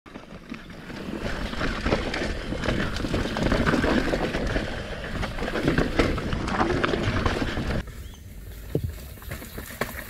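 2019 Dartmoor Blackbird mountain bike rolling fast down a rocky dirt trail: tyres crunching over stones and roots while the bike rattles and clatters with many sharp knocks. It turns quieter about eight seconds in.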